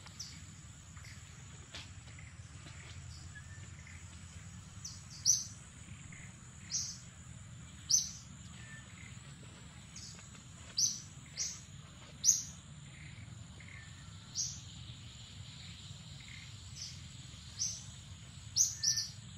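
A steady high-pitched insect drone, with a bird giving short sharp chirps about a dozen times, every second or two.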